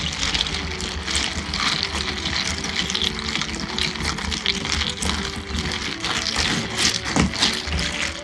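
Long bar spoon stirring ice and milk in a plastic cup: a steady run of ice clinking and rattling against the plastic with liquid sloshing, as purple sweet potato purée is mixed up into the milk.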